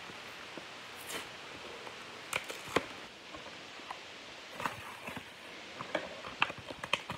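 Crinkling and tearing of a trading-card pack's wrapper being opened by hand: scattered sharp crackles and clicks, the loudest about three seconds in and a cluster of them near the end.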